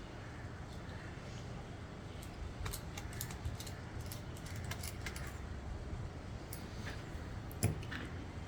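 Light clicks and taps of a small screwdriver and laptop parts being handled while the M.2 SSD is taken out of the laptop, with a cluster of small clicks a few seconds in and one sharper click near the end.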